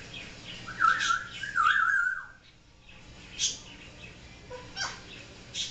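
African grey parrot making a loud warbling whistle with a trembling pitch for about a second and a half, ending in a short downward slide, then a few short, sharp high chirps.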